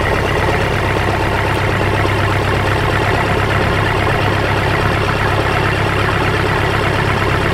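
Small boat's engine running steadily at an even speed, with no change in pitch.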